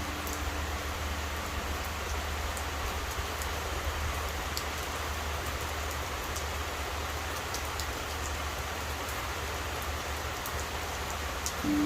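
Steady rain falling, with scattered drips. A struck Buddhist temple bell hums on from before and dies away in the first second or two. The bell is struck again near the end, its deep hum starting suddenly.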